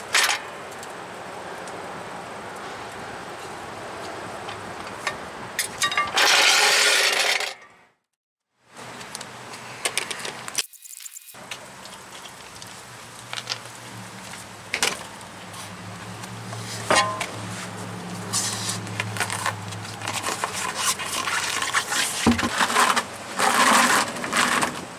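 Metal lug nuts clinking as they are turned off a wheel by hand and set down, among scattered knocks and scrapes as the wheel is handled. A loud rush of noise lasting about a second and a half comes early on.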